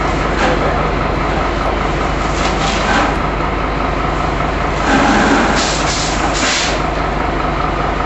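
Fire engine's engine running steadily, a constant mechanical drone, with a few short hissing bursts about a third of the way in and again past the middle.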